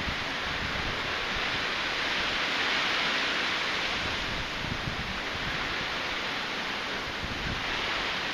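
Steady rushing noise of typhoon wind, with irregular gusts buffeting the microphone.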